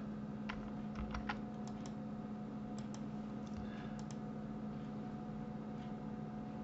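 Computer keyboard keys and clicks tapped in small bunches, mostly in the first four seconds, over a steady low electrical hum.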